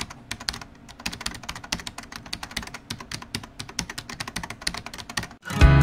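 Rapid, irregular clicking, several clicks a second, which stops near the end as music begins.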